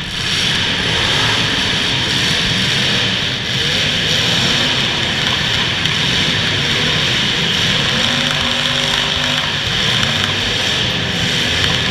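Engines of demolition derby cars running together, a steady loud din with no break.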